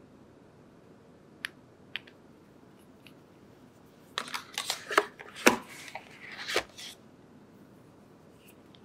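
Small plastic gel-polish bottles being handled. Two light clicks come first. About four seconds in comes a burst of plastic clicking and rattling that lasts nearly three seconds, as a bottle is drawn out of its holder among the others.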